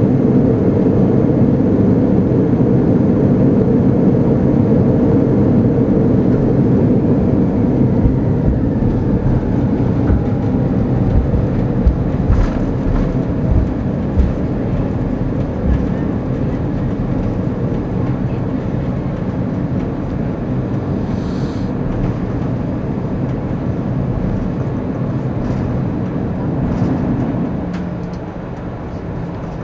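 Cabin noise of an Airbus A340-300 rolling out after touchdown: a loud, steady rumble from its CFM56 engines, with thrust reversers deployed, and from the wheels on the runway. The rumble fades gradually as the aircraft slows, with a few light knocks midway and a further drop near the end.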